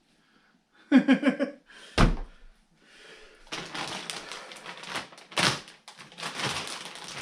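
Handling of large RC truck parts and their packaging: a heavy thud about two seconds in, then rustling and scraping of packaging with a sharp knock midway. A short vocal sound comes just before the thud.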